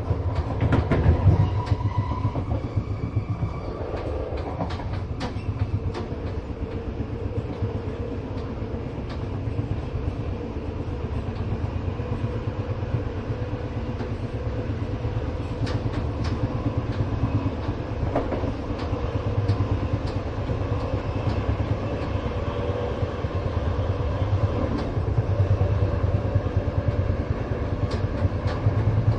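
Moving passenger train heard from inside the carriage: a steady low rumble from the running gear, with scattered sharp clicks and rattles and a faint steady hum.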